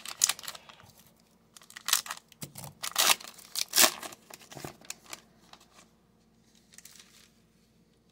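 Foil wrapper of a trading card pack being torn open by hand: a series of irregular crinkling tears, loudest about two, three and four seconds in, settling down after about five seconds.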